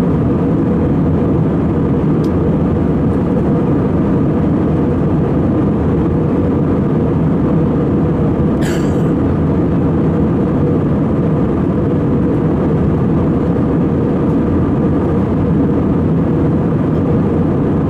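Steady in-cabin drone of an Airbus A320-216 in flight, heard from a window seat over the wing: its CFM56 turbofan engines and the rush of air along the fuselage. A short high rustle comes about halfway through.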